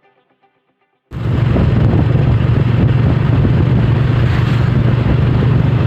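A vehicle engine running steadily with a low drone and road noise, heard from on board while moving. It cuts in abruptly about a second in, after a moment of quiet.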